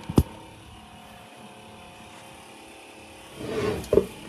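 Handling noise from a handheld phone being moved: a sharp knock just after the start, a faint steady hum, then rustling and a second bump near the end as the phone is brought close to the face.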